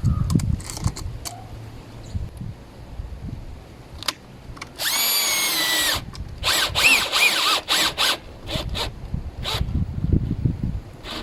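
Cordless drill/driver motor running in bursts: one steady run of about a second near the middle, then several shorter pulses, with a few clicks and knocks of handling around them. This fits driving screws into a deadbolt's latch plate seated in the door edge.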